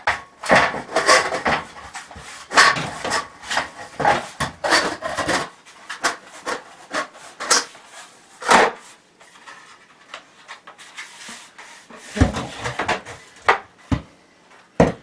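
Lengths of light-gauge metal stud channel scraping and clattering against each other as one is slid inside the other, dense for the first several seconds, then a few sharp knocks in the second half.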